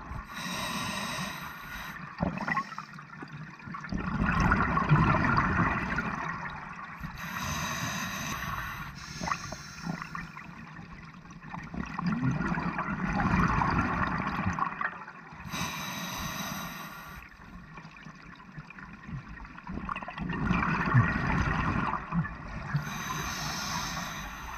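Scuba diver breathing through a regulator underwater: a short hissing inhale about every eight seconds, each followed by a louder gurgling rush of exhaled bubbles, four breaths in all.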